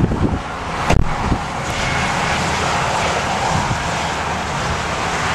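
Steady rushing roar of wind and passing highway traffic, with a single sharp knock about a second in.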